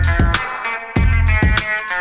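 Background music: a drum beat with heavy bass notes and a repeating melodic line.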